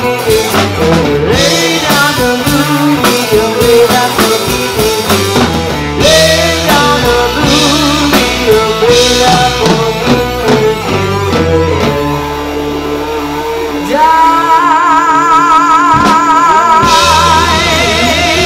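Live rock band playing: female lead vocals over electric bass, electric guitar and drum kit. About two-thirds through the band drops back and a long held note with vibrato sounds, then the full band comes back in near the end.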